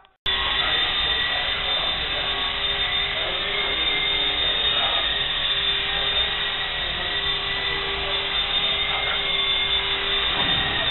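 Blade CX3 coaxial electric RC helicopter hovering, its motors and twin rotors giving a steady high whine that starts abruptly just after the start. A lower steady hum under the whine shifts near the end.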